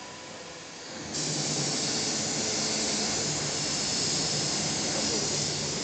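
Air-assisted airless paint spray gun, fed by a Graco Merkur 48:1 pump, triggered about a second in and spraying paint with a loud steady hiss over a low hum.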